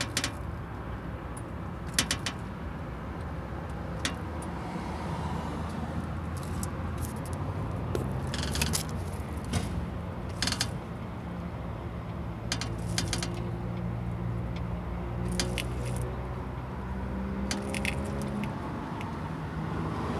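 Car engine idling steadily, with short clusters of creaking clicks from the suspension every second or two as the wheels are turned: the suspension squeak being hunted down.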